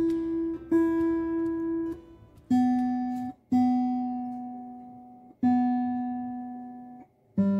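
Martin D-35 acoustic guitar, freshly strung, having single strings plucked one at a time and left to ring while it is tuned up: a higher string twice, then the next lower string three times, then a lower one again near the end.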